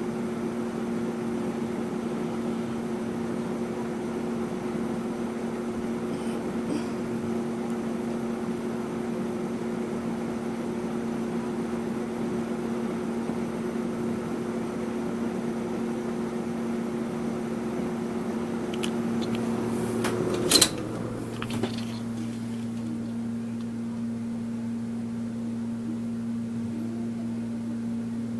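1984 Robeson 20-inch box fan running: a steady motor hum under the rush of moving air. About twenty seconds in a sharp click is heard, and after it the hum changes and the air noise gets quieter, as when the fan is switched to another speed.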